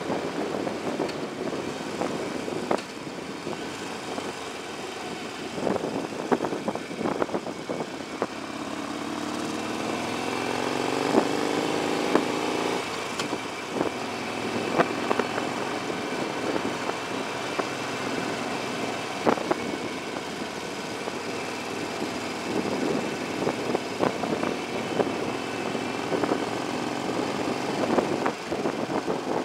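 Motorcycle engine and wind noise heard from a bike-mounted camera while riding in traffic, with the engine pitch rising as it accelerates around a third of the way in and occasional sharp knocks.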